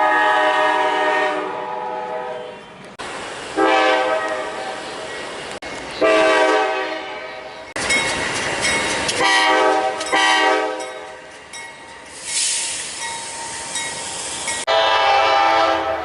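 Nathan Airchime K5LA five-chime train horns sounding a string of blasts, each a steady multi-note chord lasting a second or two. The blasts come from several clips joined with abrupt cuts. Between some blasts a passing train makes a noisy rush.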